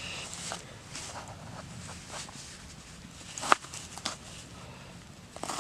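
Scattered sharp knocks of a kitchen knife on a cutting board while garlic is being cut, a few irregular taps with one louder knock about three and a half seconds in.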